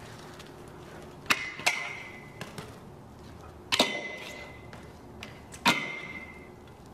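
BMX bike striking a metal pipe rail: four sharp metal clanks, a quick pair about a second in, then one near the middle and one near the end. Each leaves the rail ringing with a high tone that fades quickly.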